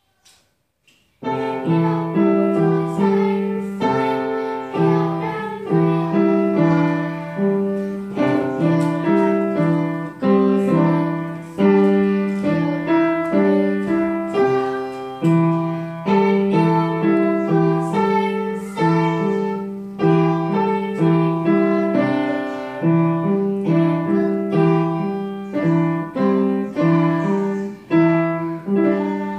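Upright piano being played by a child: a piece in a steady rhythm of struck notes starts about a second in and carries on without a break.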